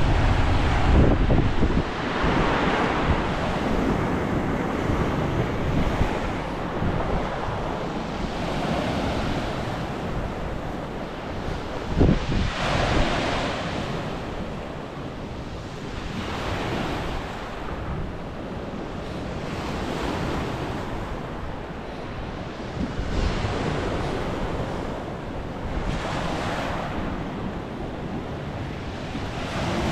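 Sea waves breaking and washing up on the shore, swelling every few seconds, with wind buffeting the microphone, heaviest in the first couple of seconds.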